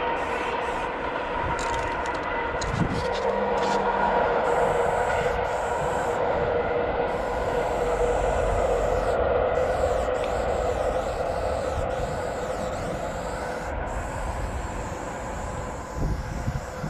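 A long, steady rumble of a passing vehicle with a few held tones, growing louder through the middle and slowly fading. A spray paint can hisses as pink paint is laid along the wall.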